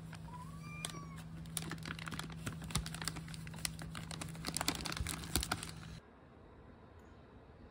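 A cat crunching dry kibble: a run of irregular, crisp crunches that stops suddenly about six seconds in.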